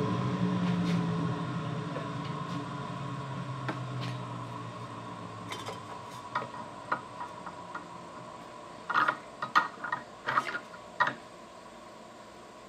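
A lathe motor hums and fades away over the first several seconds as the machine runs down. About nine to eleven seconds in comes a quick cluster of sharp clicks and knocks.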